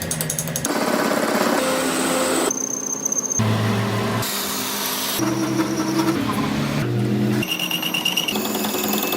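Power tools working on a metal pinion gear, in a series of short, abruptly cut clips: whining and grinding machine noise whose pitch and character jump every second or so.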